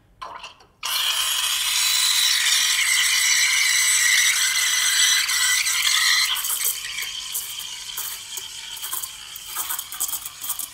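Rancilio Silvia V6 steam wand hissing and screeching in a pitcher of milk as it froths, starting with a short puff and opening fully about a second in. About six seconds in the hiss drops and turns sputtery, as the steam power sags when the boiler temperature falls and the knob has to be opened further.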